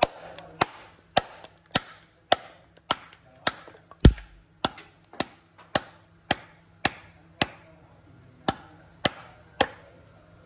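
Steady, evenly paced blows of a hand tool striking wood, about two a second and some seventeen in all, with one beat skipped near the end. One blow about four seconds in lands heavier, with a dull low thud.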